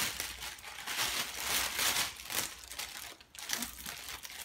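Unboxing packaging being handled, crinkling and rustling in irregular crackles.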